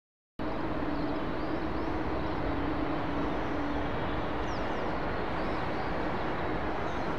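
Silence for the first half second, then the steady noise of an Airbus A380-800's four jet engines on final approach with gear down, passing low and close, with a low steady tone under it that fades about four seconds in.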